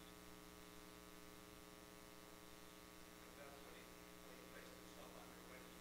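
Near silence: a steady low electrical hum, with a few faint indistinct sounds in the second half.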